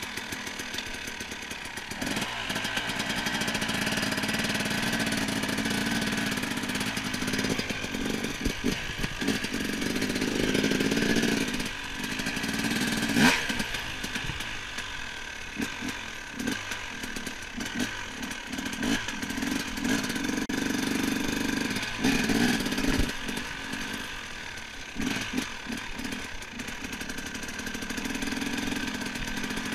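Dirt bike engine running while ridden, its sound swelling and dropping in stretches of a few seconds as the throttle opens and closes, with clatter and a sharp knock about 13 seconds in.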